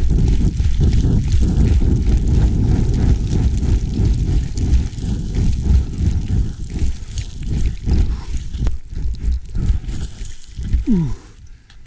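Boots running and sliding down loose scree: a dense crunching and rushing of gravel, full of irregular footfalls, that thins out and stops near the end. A brief falling-pitched sound comes just before it stops.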